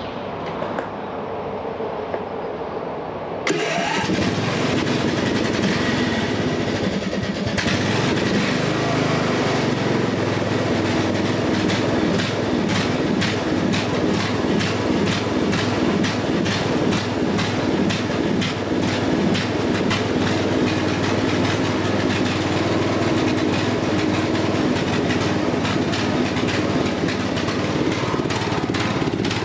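Craftsman DYT 4000 riding mower's 18.5 hp Briggs & Stratton engine being started for the first time after a head gasket replacement: it cranks for about three and a half seconds, catches suddenly and runs, picking up again about seven and a half seconds in, then runs steadily.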